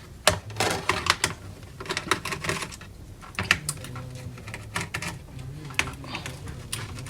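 Irregular clicks and taps of hard plastic and small metal parts as a laptop's underside, its screws and covers are handled and worked with a screwdriver, over a low steady hum.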